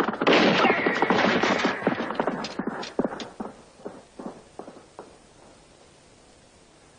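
Hooves of a group of horses clip-clopping on hard dirt. The hoofbeats are dense at first, thin out to a few scattered steps, and die away about five seconds in as the horses come to a halt.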